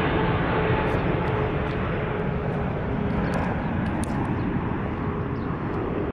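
Jet airliner flying past: steady engine noise with a faint hum, slowly fading as it moves away.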